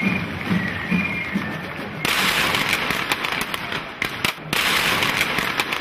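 Marching music with a high pipe melody over a drumbeat. About two seconds in, a loud, dense crackle of firecrackers sets in, pauses briefly, then starts again.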